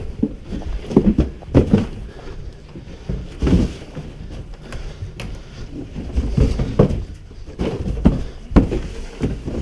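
Cardboard boxes being shifted and stacked: irregular hollow thuds, bumps and scrapes.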